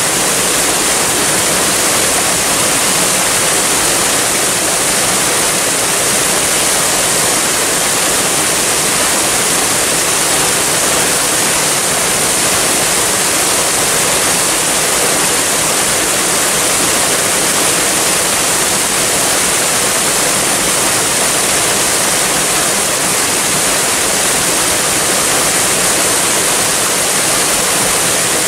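Waterfall: a steady, unbroken rush of falling water, with a bright hiss that stays the same throughout.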